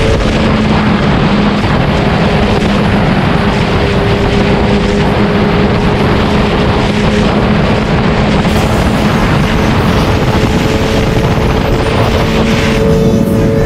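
Sport motorcycle running at a steady highway cruise, its engine holding one pitch under heavy wind rush on the bike-mounted microphone. The engine pitch rises slightly near the end.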